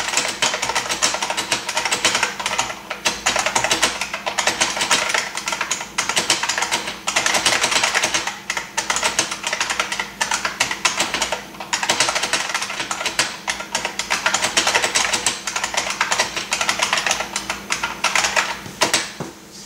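IBM Model M keyboard (model 42H1292) with buckling-spring switches, typed on fast and continuously: a dense clatter of sharp clicks, broken by short pauses every few seconds. It is heard from a little way off, not up close.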